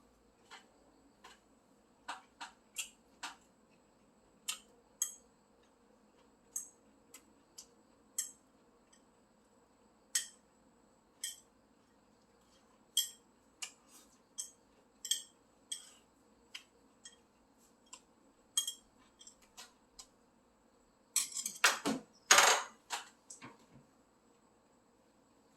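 Eating utensils clicking and tapping against plates and bowls at an irregular pace, with a louder clatter of tableware about 21 seconds in.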